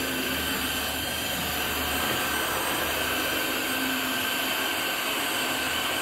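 Tineco cordless wet-dry vacuum running steadily with a constant whine as its floor head is pushed over a tiled floor.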